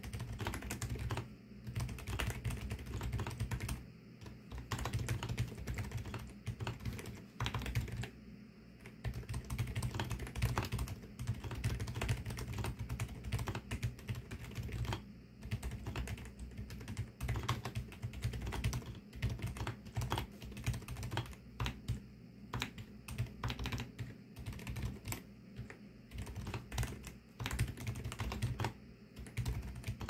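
Fast, continuous typing on a Varo V87 mechanical keyboard fitted with Varo Silent Brown silent tactile switches (48 g), with brief pauses every several seconds.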